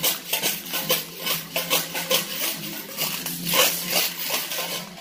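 Rhythmic rattling percussion, quick shaking strokes several times a second.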